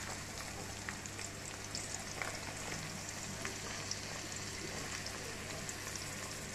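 Freshly chopped onions frying in hot oil in a kadai: a steady sizzle with scattered small crackles.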